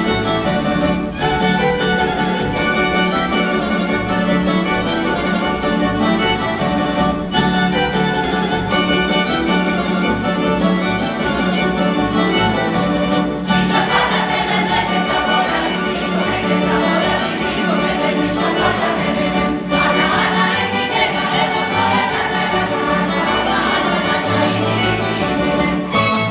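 Croatian Posavina folk dance music from a string band, with violin carrying the melody over a steady rhythmic accompaniment.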